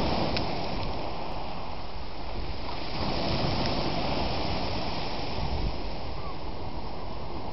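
Steady rushing noise of waves and wind, even throughout with no distinct events.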